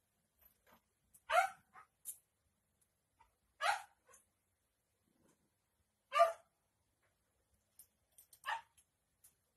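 Four short, sharp animal calls, evenly spaced about two and a half seconds apart.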